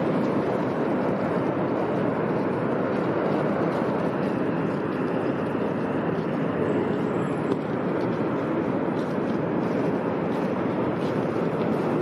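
Niagara Falls, water plunging down the cliff in a steady, even rush.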